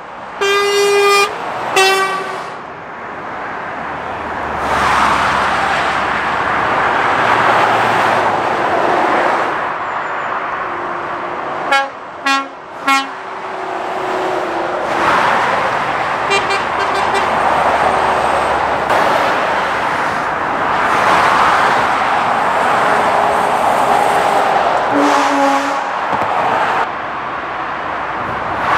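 Lorries and other motorway traffic passing one after another, their tyre and road noise swelling and fading, with horns tooted in short blasts. There are two blasts about a second in, a loud string of several quick toots around twelve seconds in, and a few fainter toots later on.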